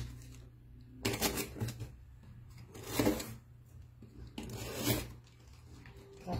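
A utility knife slitting packing tape on a cardboard box, with the cardboard and its plastic wrapping scraping and rustling, in several short bursts.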